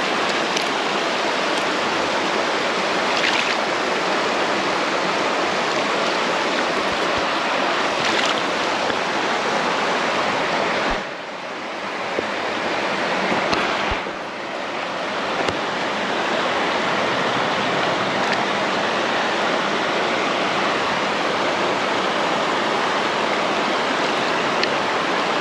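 Shallow creek water rushing and babbling close to the microphone, a steady, loud rush with two short dips in level about halfway through.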